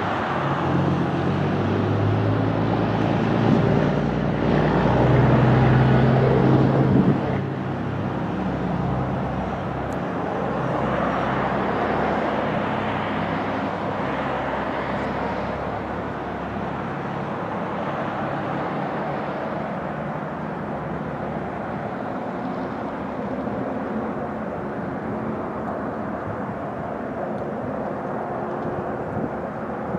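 A vehicle engine running: louder and more tonal for the first seven seconds, then steady and softer.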